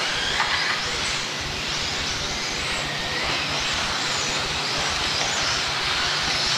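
A pack of electric 1/10-scale 2WD off-road RC buggies racing together: a steady blend of motor whine and tyre noise.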